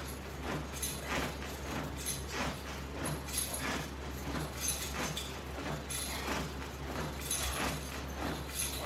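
Repeated short rustling and clinking strokes from a resistance-band crunch set, roughly one or two a second, over a steady low hum.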